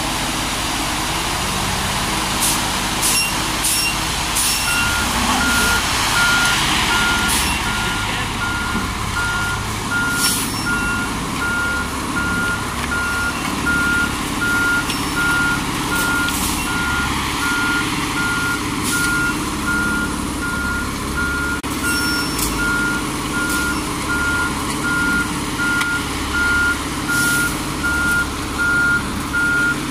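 Front-discharge concrete mixer truck running, its backup alarm beeping steadily about once a second from about five seconds in as the truck reverses along the pour, over the drone of the engine.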